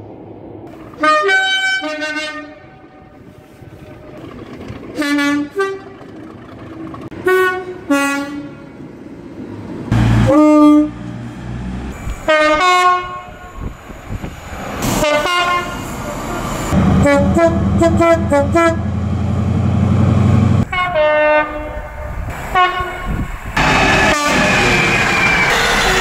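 Train horns sounding in a string of short blasts, about eight in all, from several trains. Midway a diesel freight locomotive's engine runs loudly for a few seconds as it passes, and near the end the rush of a passing train takes over.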